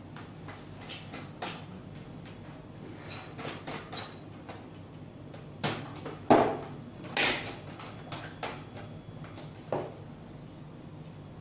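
Panels of a folding LED photo light box being handled and set in place: a series of irregular clicks and knocks, the loudest two about six and seven seconds in.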